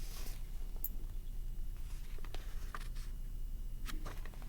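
Quiet room tone with a steady low hum and a few faint clicks and light rustles.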